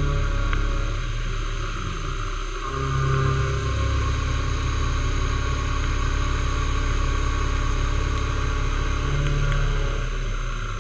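Milling machine running with an end mill cutting a metal block: a steady motor hum under the higher hiss of the cut. Twice, about two seconds in and again near the end, the hum changes and its pitch slides down and back up.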